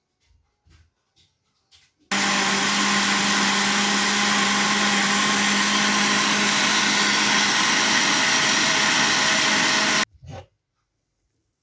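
Electric blender running steadily for about eight seconds, puréeing soup, then switching off abruptly. A few light clicks come before it starts, and a short knock follows when it stops.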